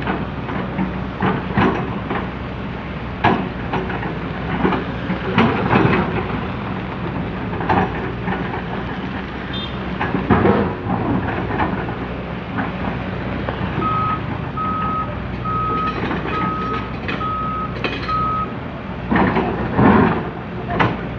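Komatsu PC200 excavator's diesel engine running under load, with repeated clanks and knocks from the digging. Partway through, a back-up alarm beeps six times at an even pace.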